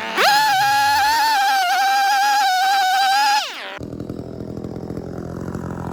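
Gas chainsaw run at full throttle for about three seconds, a loud, steady high whine that winds up at the start and drops away as the throttle is released, then the saw idling with a fast low putter.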